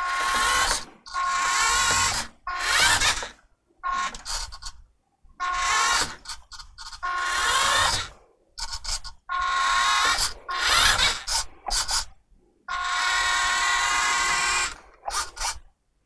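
Electric drive motor and gearbox of a Playmobil remote-control police car whirring in repeated stop-start bursts of up to about two seconds as the car drives back and forth.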